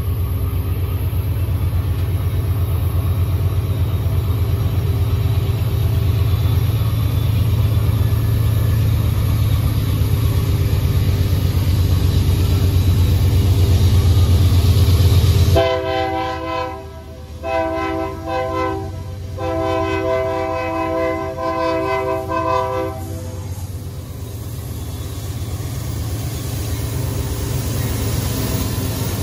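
Diesel locomotives rumbling steadily and getting a little louder. About halfway through, the rumble drops away and a locomotive horn sounds a chord in three blasts, the last one the longest, before a lower rumble carries on.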